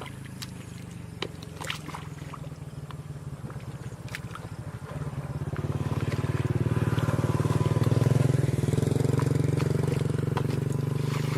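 A small engine running steadily with a fast, even putter. It gets clearly louder about halfway through, with a few light clicks and knocks over it.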